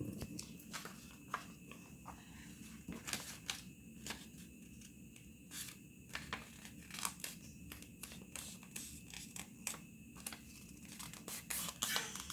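Origami paper being handled and folded: irregular faint crinkles and rustles of the sheet.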